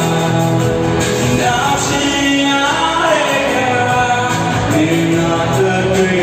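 A man singing into a microphone over instrumental backing, holding long notes and sliding between them.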